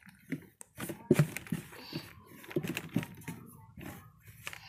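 Hands arranging cloths inside a plastic spin-mop bucket: irregular rustling and light knocks and clicks against the plastic, with a sharper knock about a second in.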